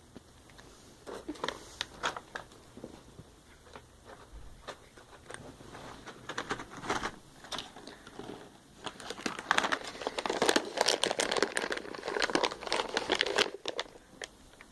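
Crinkly packaging being handled, rustling and crackling. It starts as scattered crackles and becomes a dense, louder run about nine seconds in, stopping shortly before the end.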